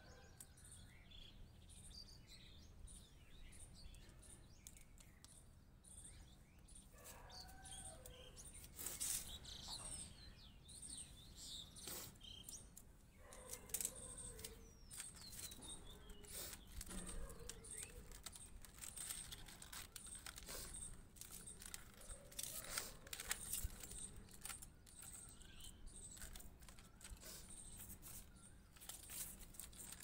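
Faint birds chirping, with scattered soft clicks and rustles from hands working on a small potted fig bonsai and stripping off its leaves.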